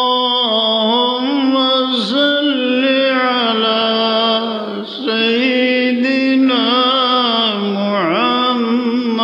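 A man's voice chanting Arabic devotional recitation in slow, drawn-out melodic phrases over a microphone. The long notes are held and ornamented with pitch bends, with short breaks for breath about every three seconds.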